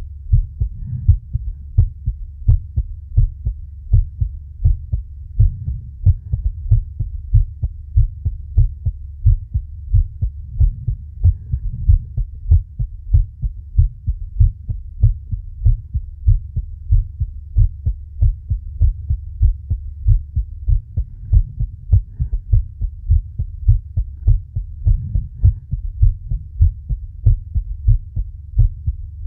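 Human heartbeat heard close up through the chest, a quick, even beat of low thumps. A faint low swell of breathing comes every few seconds.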